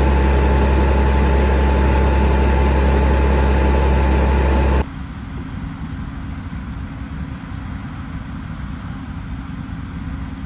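Heavy farm machine engine running steadily, with a deep hum and a steady whine. About five seconds in it cuts abruptly to a quieter low rumble.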